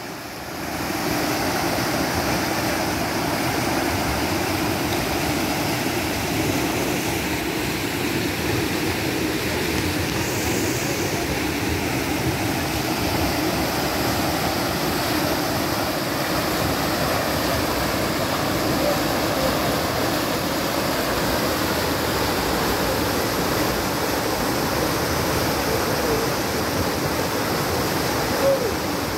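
Floodwater rushing and churning in a fast, turbulent current: a steady, unbroken rush of water.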